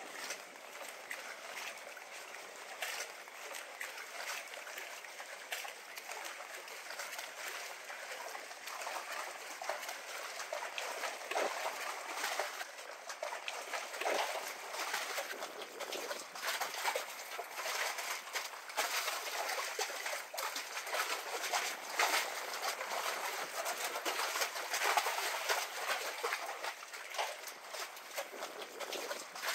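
Lagoon water lapping and splashing against the dock pilings and platform: an irregular, continuous trickling and sloshing.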